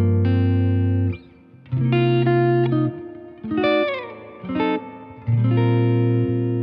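Fender Mahogany Blacktop Stratocaster HHH, a mahogany-bodied electric guitar with three humbucking pickups, played through an amp. Ringing low chords break off briefly about a second in, a quick falling run of notes comes near the middle, and a chord is left to ring near the end.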